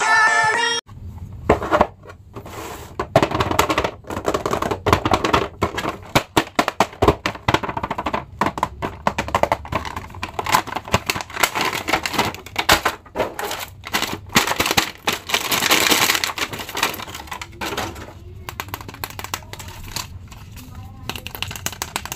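Cardboard toy box and plastic packaging being handled and opened: a dense run of crinkling, crackling and clicking.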